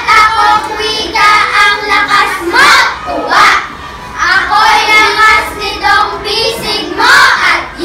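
A group of young girls reciting a poem in unison in a chanted, sing-song delivery, in loud phrases with short pauses between them.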